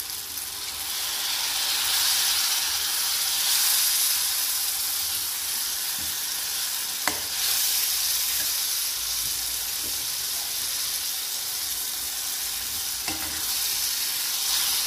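Egg curry masala sizzling in a hot pan as water is poured in, the sizzle swelling about two seconds in and then settling into a steady hiss. A steel ladle clinks against the pan a few times, most sharply about seven seconds in.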